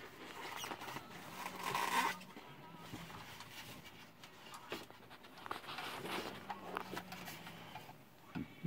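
Irregular rustling and scraping of packaging being handled as a boxed model is worked out of its box, with a few small clicks; loudest about two seconds in.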